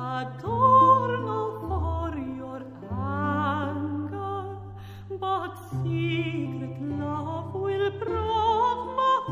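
Background music: a slow melody with strong vibrato over long held low bass notes that change every second or two.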